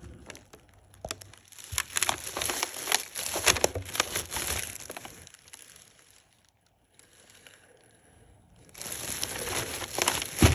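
Packaging being handled during an unboxing: crinkling and rustling in two stretches with a quiet pause between them, and a sharp knock near the end.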